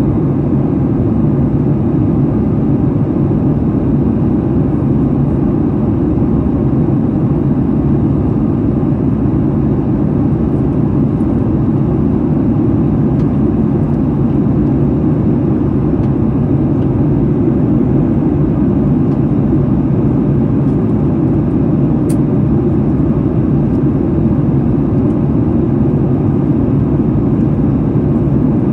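Jet airliner cabin noise in flight: a steady, low rushing drone of engines and airflow heard from a window seat.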